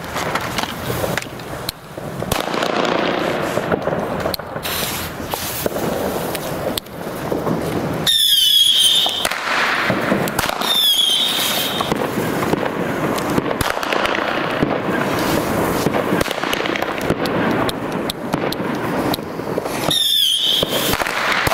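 Blackboxx Bellabomba firecrackers with a pre-burner going off: a continuous hissing crackle cut by sharp cracks, with a short high whistle about eight seconds in, another a couple of seconds later, and a third near the end.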